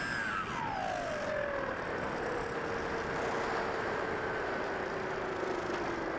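Electric motor and propeller of a Bix3 RC plane whining under a steady rush of airflow noise. The whine drops sharply in pitch in the first couple of seconds as the throttle comes back, then holds low and sinks slowly.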